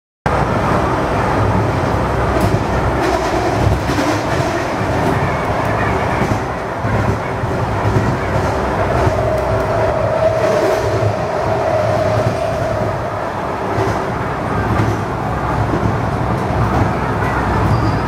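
Running noise of a Budd-built Miami Metrorail rapid transit car at a station platform, a steady hum and rumble, with a held whine for a few seconds midway.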